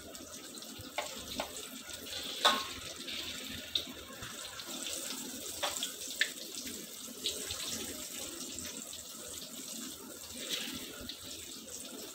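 Batter-coated mung bean balls deep-frying in hot oil in a wok: a steady sizzle with scattered sharp pops and crackles.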